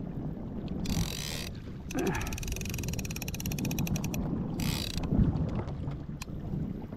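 Fishing reel ratcheting in three bursts of rapid, even clicks: a short one about a second in, a longer run of about two seconds, and a brief one near the end. Low wind and water rumble underneath.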